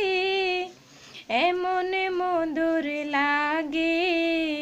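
A woman singing a Bengali song solo with no instruments, holding long notes with a slight waver. There is a short break for breath about a second in, then she sings on into another long held note.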